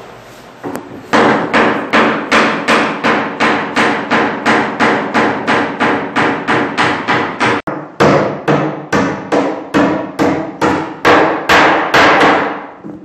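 Hand hammer nailing along the edge of a plywood cabinet panel: a steady run of sharp blows, about three a second, with a brief break about halfway through.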